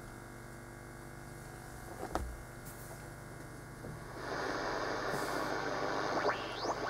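Kenwood QR-666 shortwave receiver. It starts with a low hum and a click about two seconds in. At about four seconds the gain is turned up and loud band static rushes out of the speaker, with gliding heterodyne whistles near the end as the dial is tuned.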